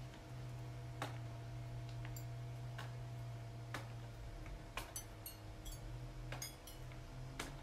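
Small irregular clicks and taps from hand work with a small tool and pieces, about ten of them, over a steady low hum.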